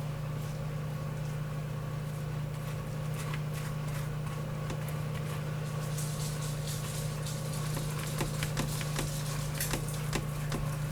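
Light clicks and scrapes of granola mix being stirred in a bowl, more frequent in the second half, over a steady low hum.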